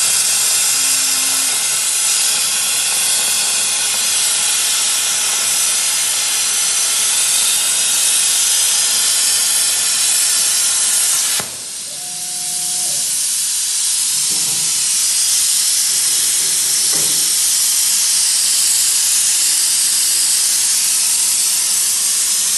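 CNC plasma cutting torch hissing loudly and steadily as it cuts through a steel pipe. About halfway through the hiss cuts off abruptly as the cut finishes, leaving a brief quieter moment with a short machine whine, then a steady hiss comes back and runs on.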